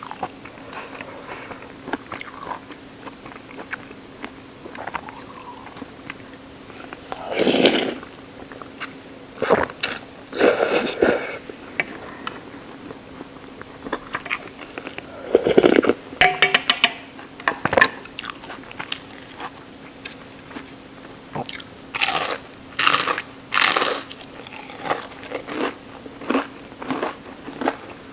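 Close-miked eating sounds of a bowl of shoyu ramen: chewing, with several loud, short slurps of noodles and broth spread through.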